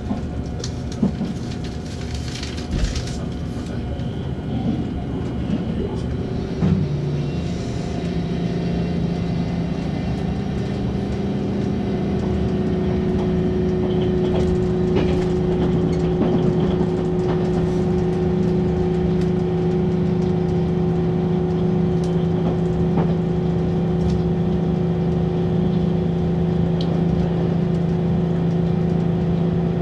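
Inside a JR 8000 series electric train running at speed: steady rumble of wheels on rail. A constant low hum sets in suddenly about seven seconds in and holds, and the overall noise grows a little louder after it.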